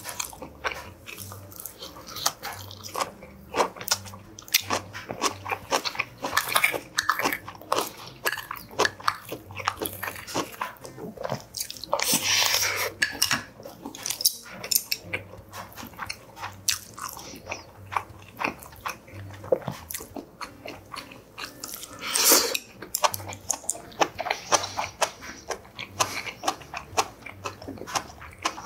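A person chewing and crunching crisp green vegetables dipped in sauce, close to the microphone, with irregular crackly bites and wet mouth sounds. Louder crunching comes about twelve seconds in and again around twenty-two seconds in.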